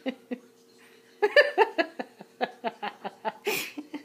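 Person laughing off camera in a quick run of short giggles, starting about a second in and ending with a breathy burst near the end, over a faint steady hum.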